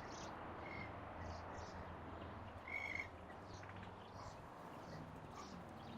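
Outdoor ambience: faint, short chirping animal calls repeating over a steady background hiss, with one louder buzzy call about three seconds in.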